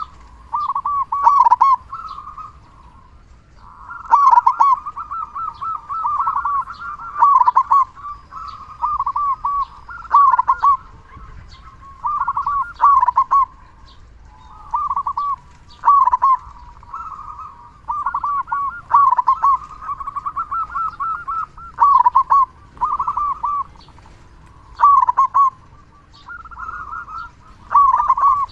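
Zebra dove (perkutut) singing: phrases of quick rolling coos, repeated over and over with short pauses between them.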